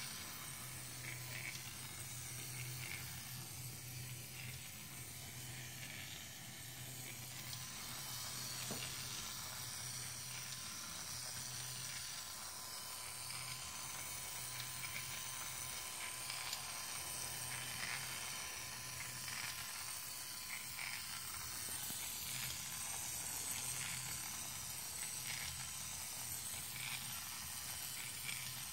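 Small electric motor turning an assembled single-cylinder model engine kit through its belt: a steady hum with faint light clicking from the moving parts.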